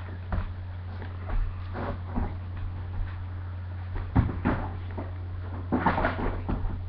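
A Beyblade spinning top's parts being handled and fitted together by hand: a scattering of light, irregular clicks and knocks, busiest near the end. A steady low electrical hum runs underneath.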